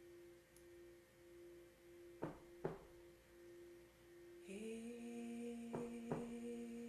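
A singing bowl's steady ringing tone, wavering slightly, with soft drum beats in heartbeat-like pairs about every three and a half seconds. About four and a half seconds in, a second, lower steady tone joins.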